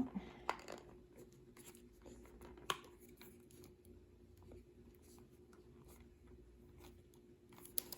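Faint handling of a cardboard tarot-deck box as its fold-in flaps are worked: scattered small clicks and scrapes, with a sharper click about half a second in and another near three seconds, over a low steady hum.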